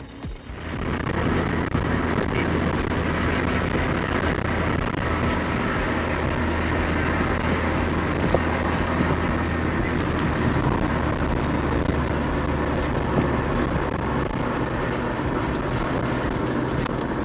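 Heavy truck driving: a steady low engine drone under a loud, even rush of road noise, starting suddenly about half a second in.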